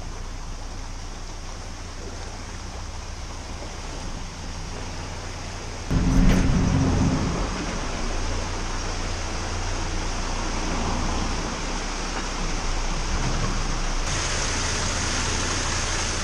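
Water rushing and splashing through a canal lock's gate paddles, a steady churning roar of falling water with a low steady hum underneath. It steps louder about six seconds in and turns brighter and hissier near the end.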